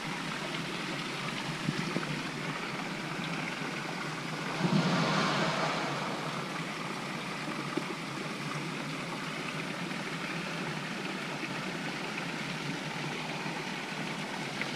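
Stream water running steadily, with a louder rush of water lasting about a second and a half, about five seconds in.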